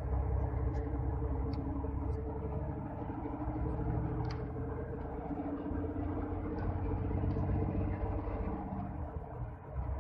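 A motor vehicle running with a steady low rumble and a constant engine drone, with a few faint ticks over it.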